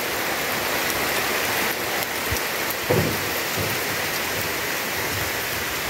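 Heavy rain falling steadily, an even hiss of rain on leaves and surfaces.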